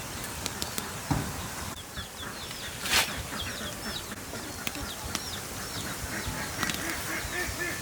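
Birds chirping in quick, repeated short high calls, with one sudden loud rustle or thump about three seconds in. Near the end, lower honking calls of farm waterfowl begin.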